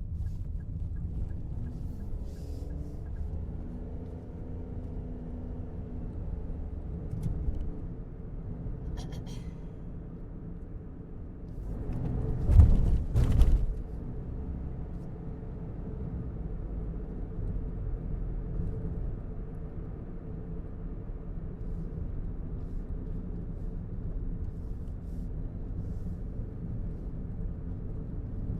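Car being driven: a steady low engine and road rumble, with a short cluster of loud thumps about halfway through.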